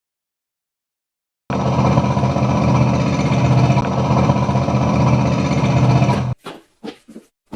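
A loud machine motor running steadily with a fast rattle. It starts about a second and a half in, cuts off suddenly, then comes back as four short bursts.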